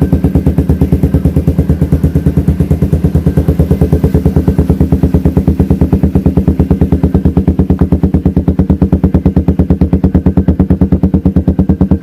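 Suzuki Raider 150's single-cylinder four-stroke engine running at a steady idle through a CHA Rama 9 aftermarket exhaust with the silencer removed, giving a loud, even, rapid popping beat.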